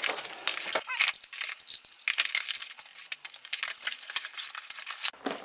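Unboxing sounds: packaging and cardboard being handled, with a quick run of small clicks, taps and rustles.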